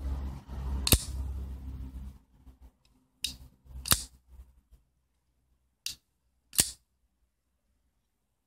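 Morrf 4 flipper folding knife with a titanium handle being flipped open and closed by hand: sharp metallic clicks of the blade snapping into place, one about a second in, then two pairs a little over half a second apart.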